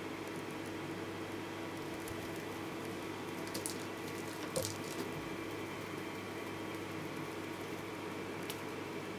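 Steady low room hum with a few faint clicks and rustles, mostly around the middle.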